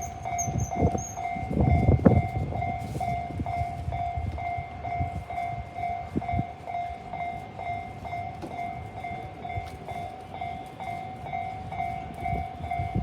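A Japanese railroad crossing's electronic warning bell rings in an even, repeating ding. Under it a Saikyo Line train passes with a low wheel rumble and clacking over the rail joints, loudest about two seconds in.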